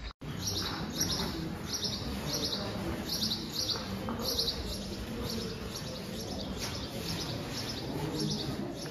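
A bird chirping in a quick, regular series of high notes, over a low background rumble.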